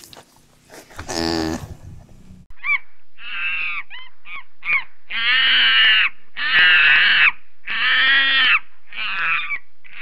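Langur giving a run of loud, harsh, high-pitched screeching calls. They start about two and a half seconds in, short at first, then drawn out to about a second each. Before them, one brief lower-pitched animal call about a second in.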